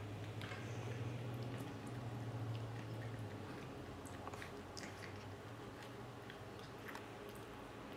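Quiet room tone: a low steady hum that fades out about three and a half seconds in, with faint scattered small ticks and clicks.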